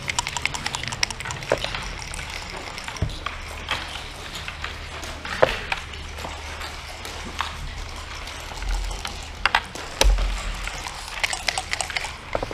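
Backgammon checkers clacking as they are picked up and set down on a wooden board, with dice rolling and knocking. There is a quick run of clicks at the start, scattered single clacks, a few low thuds, and a cluster of clicks near the end.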